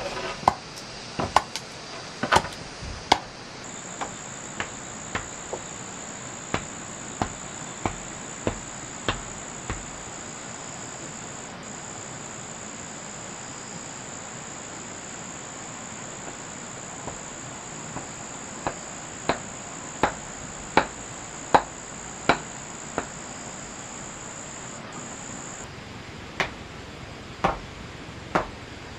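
Hammer blows in runs of about one a second, broken by a pause of several seconds partway through. A steady high-pitched insect trill starts a few seconds in and stops near the end.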